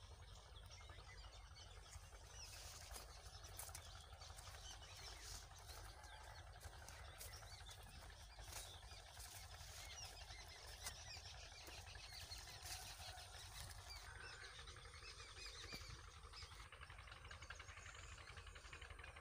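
Faint chirping of small birds, many short overlapping calls, over a steady low rumble, with scattered faint clicks between about 2 and 14 seconds in.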